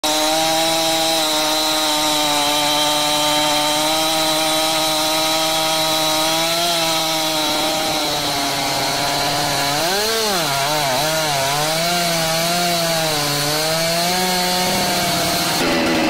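Two-stroke chainsaw running at high revs under load as it cuts into the base of a large tree trunk. The engine note holds steady at first, then dips and rises several times around the middle of the cut as the load on the chain changes.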